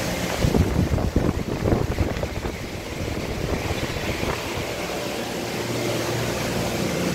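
Steady low mechanical hum of running machine-shop equipment. There are irregular low thumps in the first two seconds, and the hum comes back stronger near the end.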